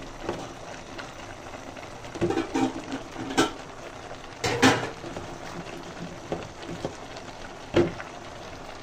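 Metal spoon stirring chopped water leaf into a pot of simmering soup, with a steady sizzle under it. A few sharp scrapes and knocks of the spoon against the pot come through, the loudest about halfway through and near the end.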